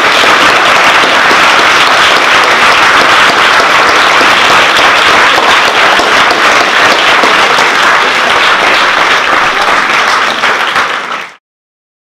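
Audience applauding steadily, a dense patter of many hands clapping. It cuts off suddenly near the end.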